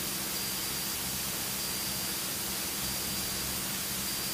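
Steady hiss over a low, even drone from the Beechcraft Baron's two piston engines and propellers, heard inside the cockpit on approach.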